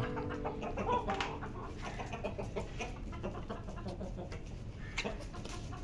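Chickens clucking, most clearly in the first second or so, then quieter.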